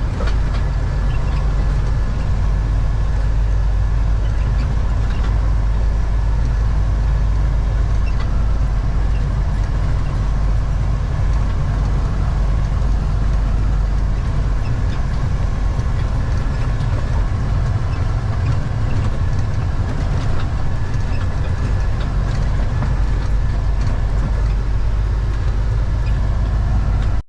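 Western Star semi truck running steadily under way, a constant low diesel rumble with faint rattles and clicks.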